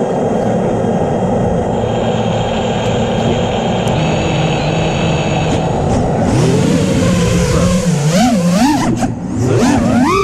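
FPV freestyle quadcopter's motors and propellers whirring steadily, then rising and falling in pitch again and again with throttle changes from about six seconds in.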